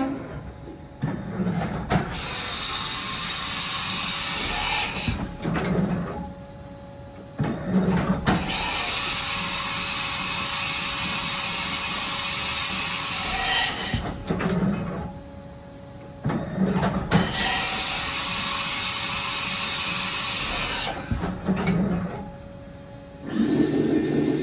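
A Haas VF-1 CNC vertical machining center running through repeated machine motions: three stretches of steady whirring with high whines, each a few seconds long, broken by quieter pauses with low thuds and clicks as the motion stops and starts.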